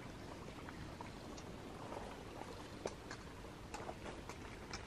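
Faint outdoor ambience: a low steady hiss with scattered short, quiet ticks and clicks.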